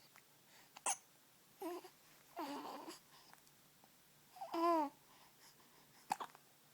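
A baby hiccuping, with two sharp hiccups about a second in and near the end. Between them come three short cooing, babbling sounds.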